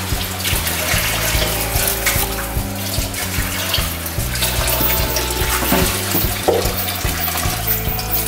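Background music with a steady bass line over a steady hiss. A few soft knocks come from a kitchen knife slicing fresh ginger on a wooden cutting board.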